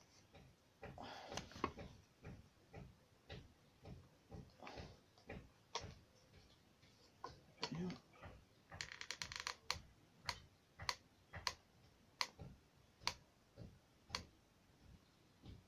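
Hot glue gun trigger clicking as glue is fed onto a card model, with single clicks every second or so and a quick run of clicks about nine seconds in. Card rustles briefly near the start.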